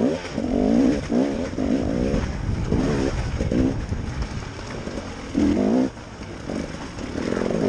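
KTM enduro motorcycle engine revved in repeated short throttle bursts, its pitch rising and falling, with a few brief lulls, as the bike picks its way over rocks. Heard from the bike-mounted camera, with a rumbling background.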